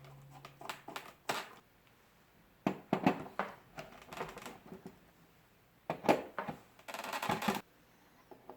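Irregular clicks, taps and rattles of small hardware being handled, with a quick run of dense clicking near the end.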